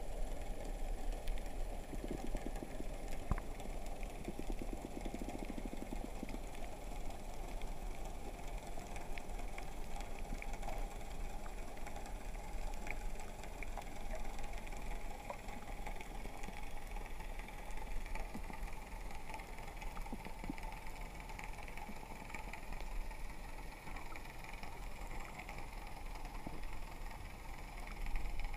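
Underwater ambience heard through a waterproof camera housing: a steady low rumble and hiss with scattered faint ticks and clicks.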